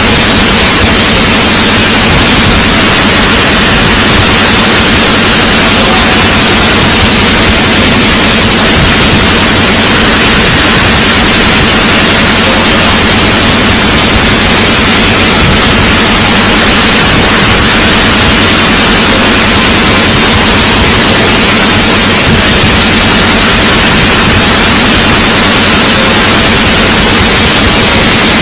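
Harsh, static-like noise from the animation's soundtrack, distorted and blown out to near full volume. It holds steady without a break.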